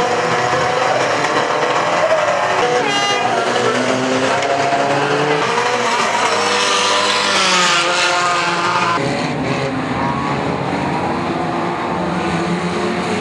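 Several banger racing cars' engines revving hard, their pitches rising and falling over one another. A rushing noise builds through the middle and stops abruptly about nine seconds in.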